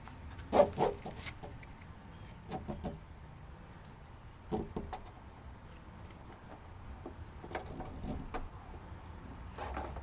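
Scattered clicks and light knocks in small clusters, the loudest about half a second in, from the bike carrier and its strap buckles being handled and adjusted.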